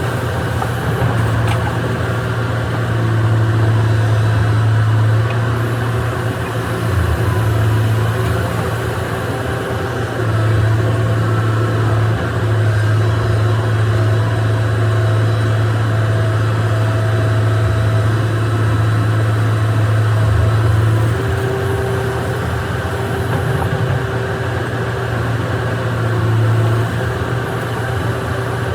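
An excavator's diesel engine running steadily with a deep hum, swelling and easing a little every few seconds.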